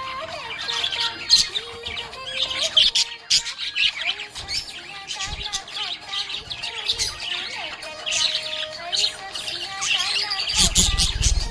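Budgerigars chirping and warbling in quick, continuous chatter over background music, with a brief low rumble near the end.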